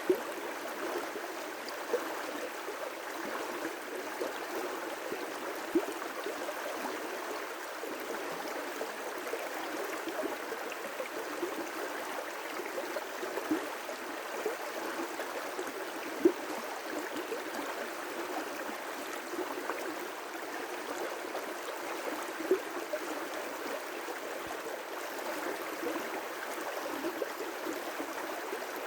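River rapids rushing steadily, a continuous hiss-like wash of water without pauses. A few brief sharp splashes or clicks stand out above it here and there, the loudest about sixteen seconds in.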